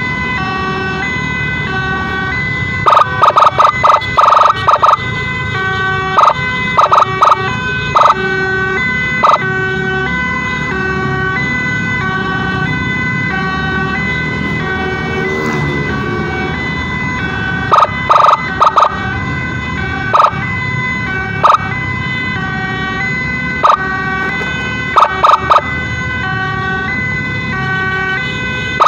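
Emergency siren sounding in a rapid alternating two-tone pattern over a steady low rumble, broken by short, very loud blasts that come in quick runs every few seconds.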